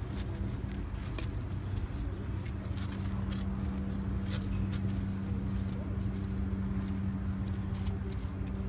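A steady mechanical hum on one low, unchanging pitch, with a rumble beneath it and a few faint scattered clicks.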